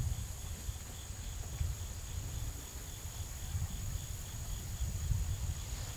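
Insects chirping steadily: a high continuous buzz with a faint chirp about three times a second, over a low rumble.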